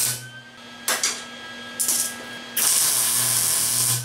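Small 110-volt wire-feed welder's arc crackling as steel brackets are tacked: a brief tack about a second in, another just under two seconds in, then a longer steady weld of about a second and a half. A faint steady hum sounds between the arcs.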